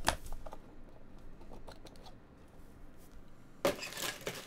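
Cardboard trading-card box being handled and opened: a sharp click at the start, then a short cluster of rustles and knocks about three and a half seconds in as the box is set down open.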